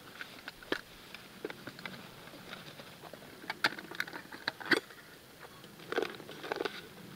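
Scattered light clicks and knocks of a metal camp pot and its lid being handled, with a few sharper clinks near the middle and toward the end.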